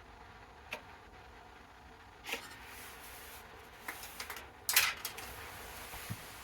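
A few scattered clicks, knocks and short scraping sounds of metal parts being handled as a square is set against the bench sander's table, with the sander switched off; the loudest knock comes just before five seconds in.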